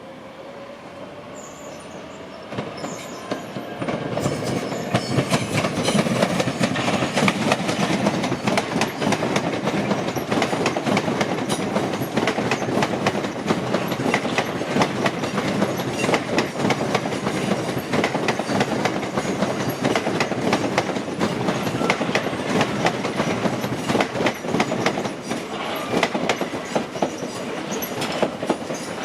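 Train running on rails with a loud rolling noise and rapid clatter of wheels over rail joints, building up over the first few seconds; a rising whine can be heard at the very start.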